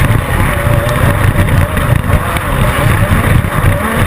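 Class 10 desert off-road race car's engine running hard at speed, its pitch rising and falling with the throttle over a heavy, steady low rumble.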